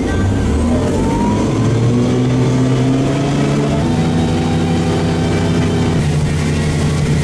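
Towboat engine running steadily at towing speed. Its pitch shifts to a new level a few times.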